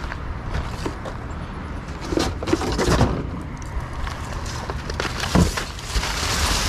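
Pieces of scrap metal being handled and dropped, rattling and knocking, with a burst of clatter about two seconds in and another sharp knock past five seconds, over a low steady rumble.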